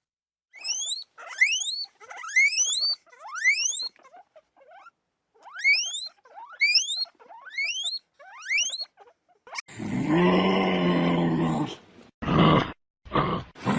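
Farm animal calls: a run of short, high, sharply rising chirps in small groups, then a loud, low, drawn-out call about ten seconds in, followed by shorter low grunting calls.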